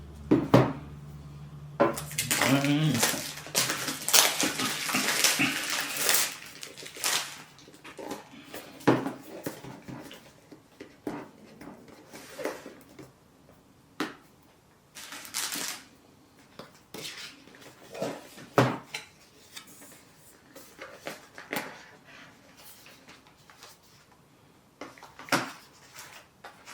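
Cardboard and plastic packaging of a DJI Osmo Mobile 6 box being worked open by hand: irregular rustling, scraping and sharp clicks. The sounds are busiest in the first several seconds and then thin to scattered clicks.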